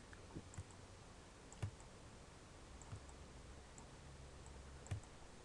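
A handful of faint, scattered computer mouse clicks over low room hiss, two of them louder than the rest.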